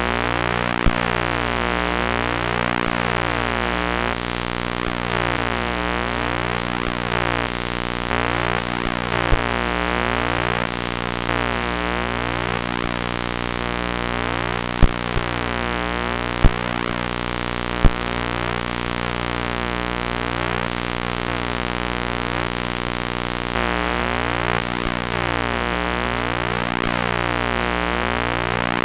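Harsh electronic buzzing drone, thick with overtones, pulsing rapidly and shifting in steps in its lower register, with a few sharp clicks, three close together around the middle.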